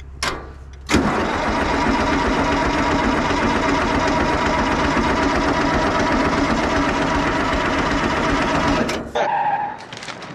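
Car crusher's Detroit Diesel engine being started: a click, then about eight seconds of loud, steady engine noise that cuts off suddenly, followed by a brief falling whine.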